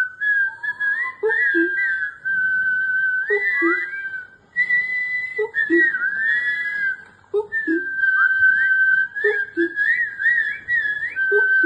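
Human imitation of a common cuckoo: a low two-note falling "cuck-oo" hooted by voice about every two seconds. A higher whistled call runs alongside it, held notes broken by quick upward and downward slides.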